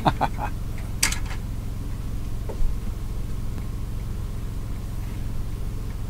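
Befano electric milk frother running with a steady low hum as it froths and heats milk. A few sharp clicks come in the first second or so and a single knock about two and a half seconds in.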